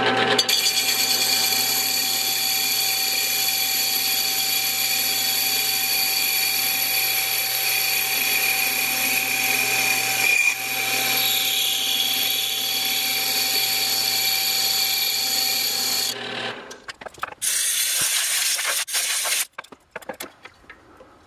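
Small HQ400 lathe-mill-drill turning a rusty, pitted motorcycle brake drum at 500 RPM: a steady whine of the lathe's drive with a high cutting hiss as the tool takes a 5-thousandths cut through the pitted braking surface. The lathe stops suddenly about 16 seconds in, followed by a few knocks and rattles.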